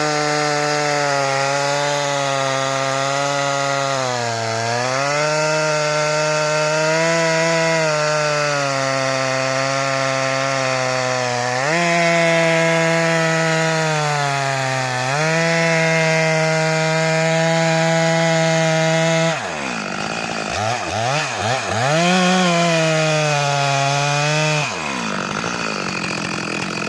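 Stihl MS 462 two-stroke chainsaw with a 90 cm bar cutting through a log at full throttle, its pitch sagging and recovering as the chain bites. About 19 s in the throttle is eased and blipped a few times, then it cuts again briefly before dropping back near the end.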